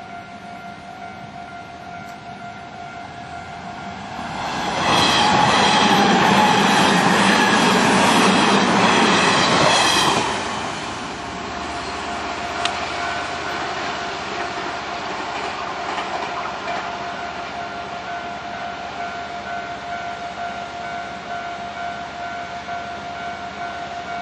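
Electric commuter train passing a Japanese level crossing, loudest from about five to ten seconds in, then fading. Under it the crossing's warning bell rings steadily at full volume, not turned down with the barriers lowered.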